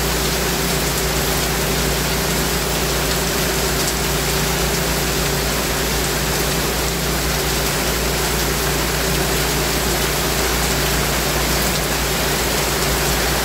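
Steady rain falling, an even, unbroken hiss, with a faint steady hum underneath.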